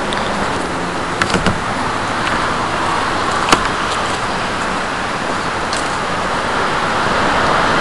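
Steady outdoor background hiss with no clear source, broken by a few light clicks a little over a second in and one sharp click about three and a half seconds in.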